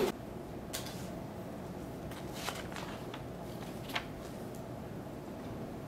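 Quiet room tone with a few faint, scattered clicks and paper rustles from exam sheets being handled, the sharpest click about four seconds in.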